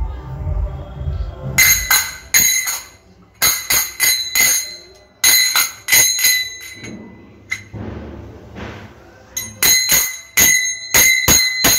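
A small high-pitched bell struck in quick bunches of strikes, each bunch ringing on the same clear tone, with short pauses between the bunches.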